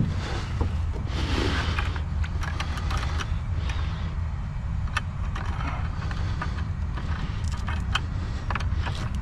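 Handling noise of rope, a metal clip and air hose: a rustle in the first couple of seconds, then a string of small, sharp clicks and clinks at irregular intervals, over a steady low rumble.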